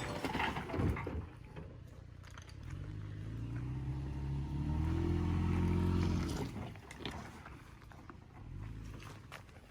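Toyota Tacoma pickup's engine pulling under throttle, rising steadily in pitch and loudness from about three seconds in, then dropping away quickly a little after six seconds. A few short clicks sound through it.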